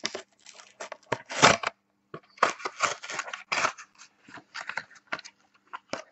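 Stiff plastic blister packaging crackling and snapping in irregular bursts as it is pried off its card backing to free a die-cast Matchbox truck.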